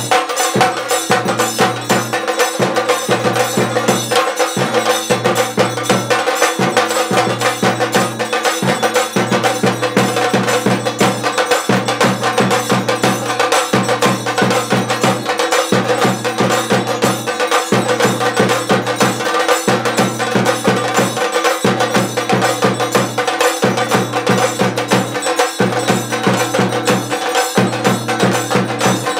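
Temple festival percussion: rope-laced barrel drums beaten with sticks, together with clashing brass hand cymbals, in a fast, unbroken rhythm. The deep drum pattern repeats about every two seconds.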